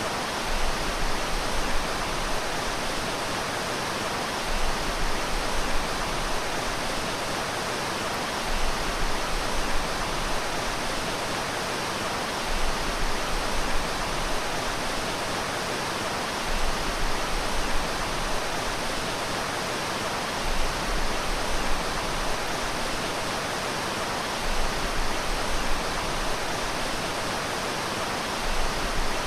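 Water from a swimming pool's waterfall feature cascading steadily into the pool, a continuous rush with a low rumble that swells about every four seconds.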